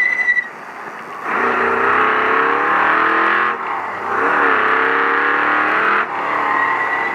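Ford Ranger desert race truck's engine pulling hard at high revs, briefly easing off about a second in, again near four seconds and once more near six seconds, each time revving back up, over a steady rushing noise.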